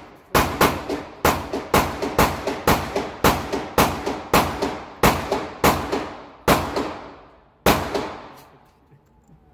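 Rapid gunfire from other shooters at the range, roughly three shots a second, each shot echoing with a long reverberant tail. The shooting stops about eight seconds in.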